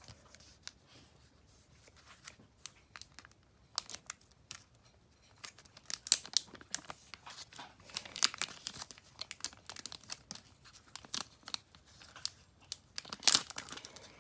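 Foil trading-card booster pack being torn open by hand, its wrapper crinkling and ripping. A few scattered crackles at first, then a busy run of rips and crinkles from about halfway through, loudest just before the end.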